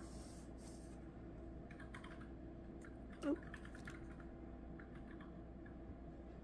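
Faint crinkling and small clicks of washi tape being unrolled and pressed by hand onto the edge of cardstock, over a low steady hum. One short, louder sound about three seconds in.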